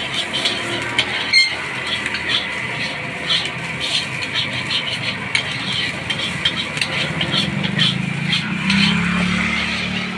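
Metal spatula scraping and clanking against a steel wok in quick repeated strokes as fried rice is stir-fried over a flame, with a steady sizzle underneath. A low hum swells in near the end.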